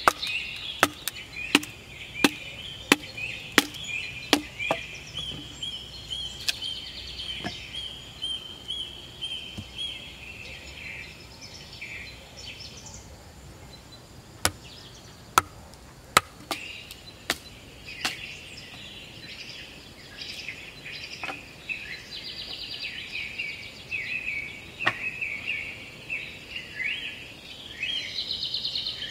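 Sharp knocks of a wooden club striking a metal wedge driven into the top of an upright wooden pole to split it: a run of about one and a half blows a second over the first five seconds, then a few spaced blows around the middle. A steady high chirping of birds and insects goes on behind.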